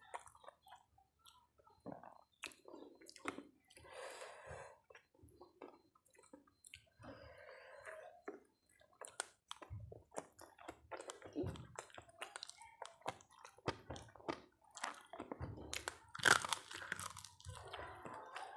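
A person chewing crispy fried quail close to the microphone: irregular wet chewing with crunches as the small bones break, and the loudest crunching about sixteen seconds in.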